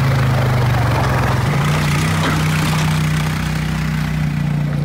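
Can-Am Outlander ATV engine running steadily as it tows a loaded boat trailer at low speed, its note stepping up slightly about a second and a half in.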